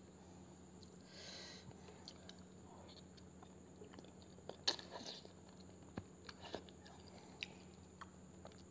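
A person eating soupy instant noodles close to a lapel microphone: soft slurps as forkfuls are drawn in, and chewing. There are several sharp clicks, the loudest about halfway through.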